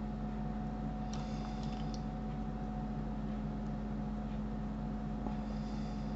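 Steady low electrical hum with a faint hiss: the background noise of the recording, with a few faint short ticks about a second in.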